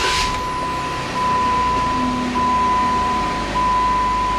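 Steady electronic beep, held long and broken by a short gap about every second and a quarter, like a vehicle warning chime, over a low hum.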